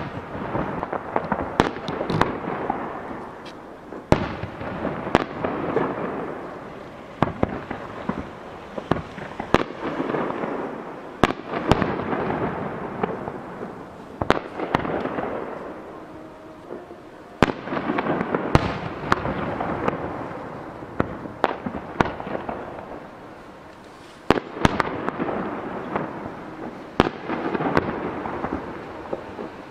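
Aerial firework shells bursting overhead, a long series of sharp bangs, several close together at times, each trailing off in a drawn-out echo.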